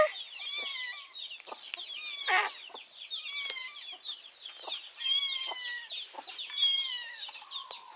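Chicks peeping: many short, high-pitched calls that fall in pitch, several a second. A brief rustle about two seconds in.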